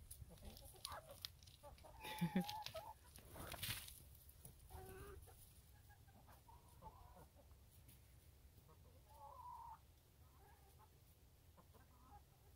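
Backyard hens clucking quietly, with short calls every second or two and a few sharp clicks about two to four seconds in.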